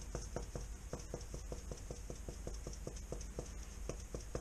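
Salt shaken from a shaker onto eel fillets in a stainless steel tray: a steady rhythmic patter of about five shakes a second.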